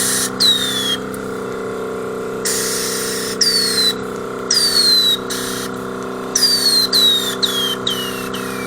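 IZh 2715 air suspension's valves being clicked open again and again, each time letting out a short hiss of air followed by a whistle that falls in pitch; the bursts come faster near the end. A steady hum runs underneath.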